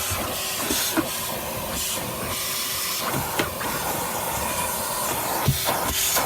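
Vacuum cleaner running steadily with a hissing rush of air as it sucks dust from the car's interior, with a few sharp clicks scattered through.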